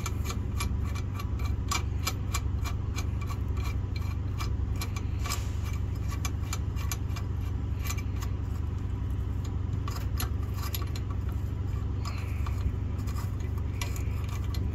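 Light, irregular metallic clicking and rubbing, several clicks a second, as a nut is turned by hand on the caging bolt of an air brake spring chamber while the bolt is worked to catch its key. Under it runs a steady low hum.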